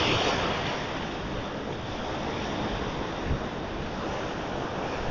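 Sea surf washing and breaking against a rocky shore, a steady rushing hiss, with wind buffeting the microphone.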